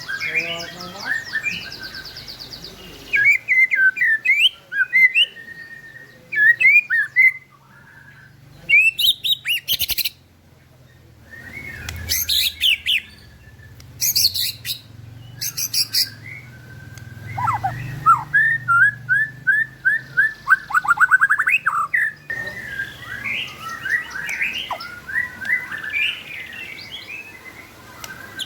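White-rumped shama (murai batu) singing a long run of varied phrases: quick sliding whistles, chattering notes and fast trills. The song changes abruptly at several points, as in spliced recordings.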